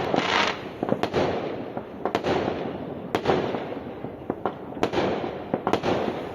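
Fireworks going off: a run of sharp bangs at irregular intervals, about one every second or so, over continuous crackling.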